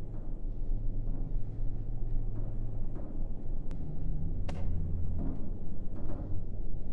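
A low, steady drum-like rumble, like a timpani roll, with a few faint sharp clicks about halfway through.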